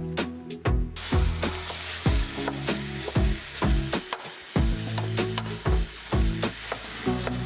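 Ground moose meat frying and sizzling in a skillet while it is stirred and broken up with a wooden spatula. The sizzle starts about a second in and runs on steadily.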